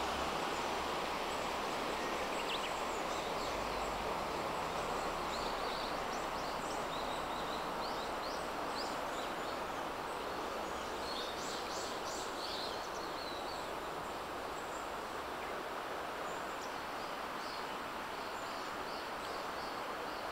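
Steady rush of river water running over a rocky riffle, with wild birds chirping and singing over it, most busily about halfway through and again near the end.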